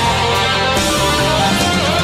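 Instrumental break of a Mandarin pop-rock song: an electric guitar lead with bending notes over a full rock band.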